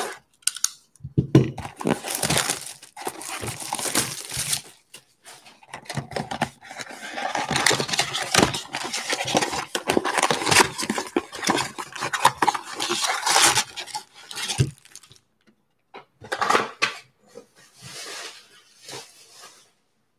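Cardboard trading-card mega box being opened and its foil-wrapped card packs pulled out and handled, a dense crackling rustle of cardboard and foil wrappers. It stops about three quarters of the way through, followed by a few shorter, softer bursts of handling.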